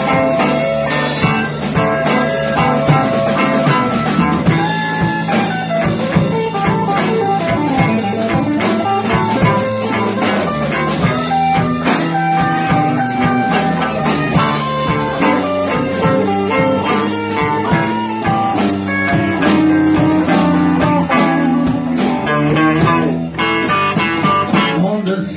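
A live band plays an instrumental stretch of a blues number: guitar over bass and drum kit, with no vocals.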